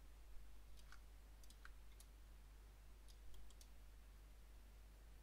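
Faint, scattered computer mouse clicks, a few at a time, over a low steady hum of room tone.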